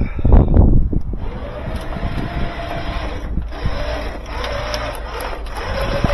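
A motor vehicle running, with wind noise on the microphone and a loud rumbling burst in the first second.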